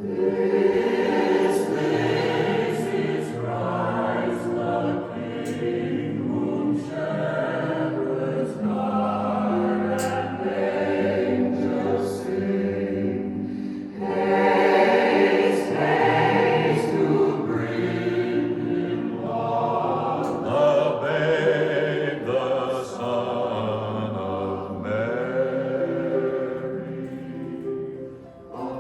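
A choir singing a Christmas carol. The voices hold sustained, changing chords, with a brief dip just before the end.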